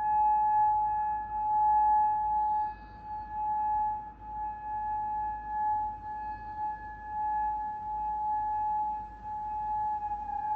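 Outdoor tsunami warning siren sounding a single steady tone, its loudness swelling and fading as it sweeps.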